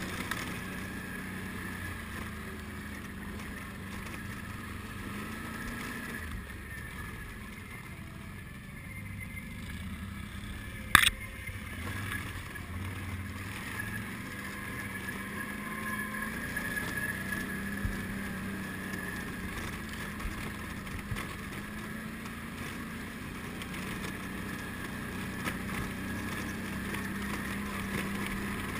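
ATV (quad) engine running steadily as it climbs, its pitch rising and falling slightly. A single sharp knock comes about eleven seconds in.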